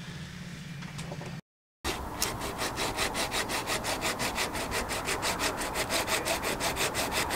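Rapid, even rasping strokes of hand-tool work on wood, about six a second, as the deck hole for the sailboat's backstay chainplate is enlarged. The strokes begin about two seconds in, after a brief dropout.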